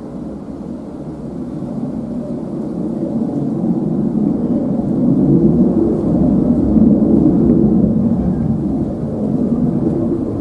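Jet engine noise from the twin GE90-115B turbofans of a Boeing 777-300ER on final approach with its landing gear down. A low, steady rumble that grows louder over the first five seconds as the airliner comes closer and stays loud through the middle.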